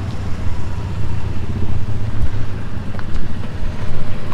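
A steady, low engine rumble with a fine even pulse, as from a vehicle running close by.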